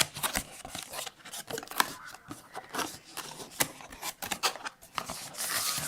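A camera's cardboard box being opened by hand. Flaps and packing scrape and click irregularly, with a denser run of rustling near the end.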